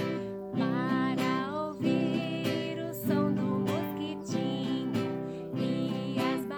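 A children's song played on acoustic guitar, strummed in a steady rhythm, with a voice singing the melody over it in short phrases with vibrato.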